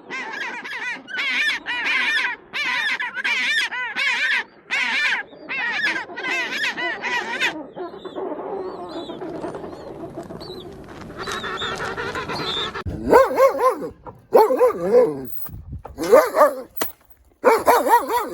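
A run of short repeated animal calls, about one and a half a second, for the first several seconds. Then a dog barking in several loud separate barks over the last five seconds.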